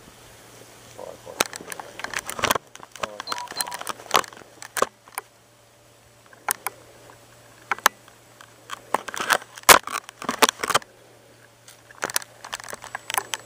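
Handling noise from a handheld digital luggage scale and its metal hook: irregular sharp clicks and metallic rattles, thickest about nine to eleven seconds in, over a steady low hum.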